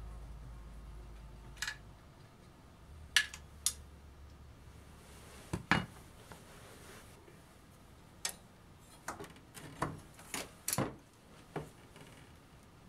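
Metal parts clinking and tapping: a dozen or so sharp clicks at irregular intervals as an aftermarket brake disc and its washers are handled and fitted onto an ATV wheel hub's studs.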